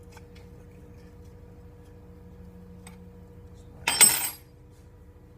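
A single loud, brief clatter about four seconds in, over a steady low electrical-sounding hum.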